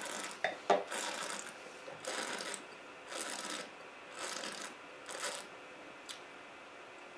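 Soft, hissy breaths, about one a second for five seconds, while a mouthful of red wine is held and tasted. There is a short sharp click near the start.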